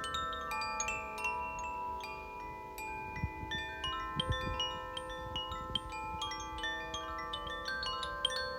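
Koshi and Zaphir tuned wind chimes ringing together: a steady stream of struck, bell-like notes, many overlapping and sustaining. A soft low rumble comes in a few seconds in.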